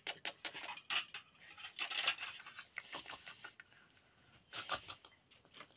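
Stainless steel bowls, cups and a ladle clinking and scraping against each other. Quick clicks come close together in the first second, then scattered knocks and scrapes follow.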